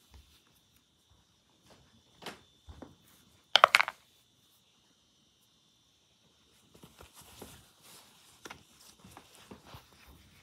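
A small die drops into a clear plastic container with one short, sharp clatter about three and a half seconds in, after a couple of light taps. From about seven seconds in come soft clicks and rubbing as a damp cloth is handled. A faint steady high whine runs underneath.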